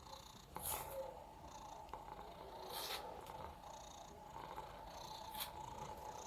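Domestic cat purring steadily, with three brief clicks and a thin steady whine that comes in about half a second in.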